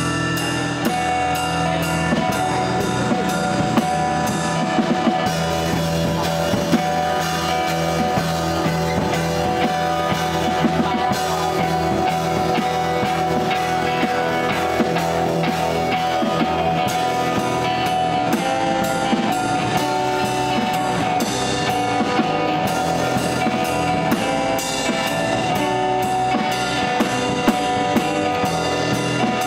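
Live acoustic band playing: two acoustic guitars with a small drum kit played with sticks, bass drum and cymbal keeping the beat.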